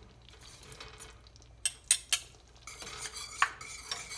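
Wire whisk stirring thick barbecue sauce in a stainless steel saucepan, a wet scraping swish, with three sharp metal clinks against the pan about halfway through.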